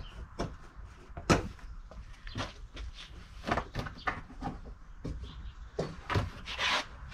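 A series of short knocks and clicks, with one sharp knock about a second in, from hands working at the Citroen Ami's plastic front panel and windscreen base.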